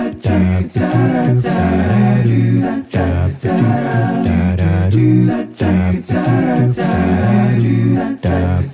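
A cappella vocal music: voices singing with a deep bass part, no instruments, in short regular phrases.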